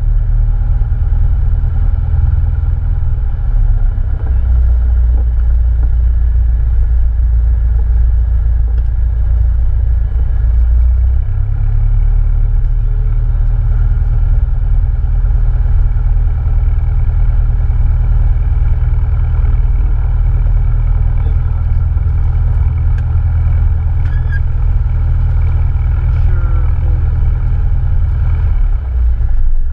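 Cessna 172N's four-cylinder Lycoming engine and propeller running with a steady, loud low drone. The drone changes tone about 4 and 11 seconds in and eases slightly near the end.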